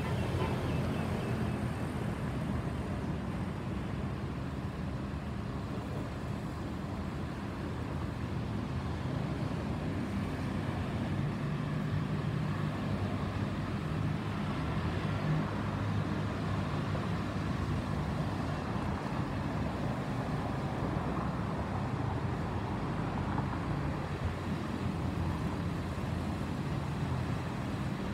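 Airbus A320 airliner's CFM56 jet engines passing high overhead, heard as a steady distant low rumble.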